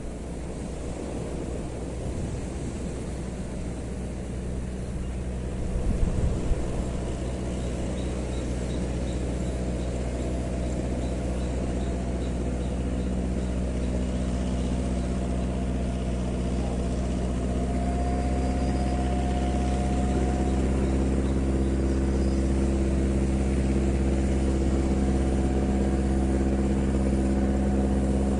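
An engine running steadily, its low hum slowly growing louder, with a brief knock about six seconds in.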